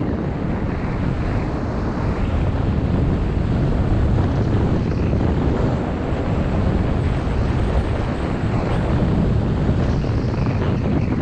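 Wind rushing and buffeting over the microphone of a camera carried by a skier running downhill, with the skis hissing and scraping over packed snow.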